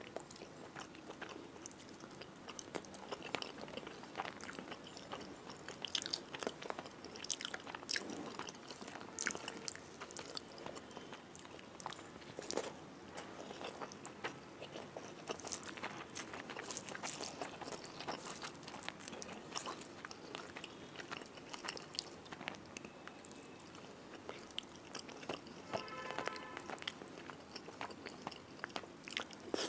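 Close-miked eating: a person chewing mouthfuls of rice and fish curry eaten by hand, with dense wet smacks and clicks. The fingers squish the rice and gravy together between bites.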